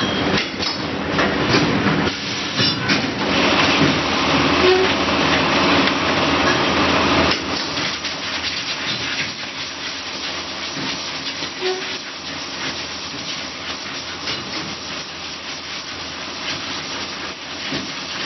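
Automatic rubber-mould casting machine running, with a steady hiss and scattered mechanical clicks and clatter. It is louder for the first seven seconds or so, then drops to a lower, steady level.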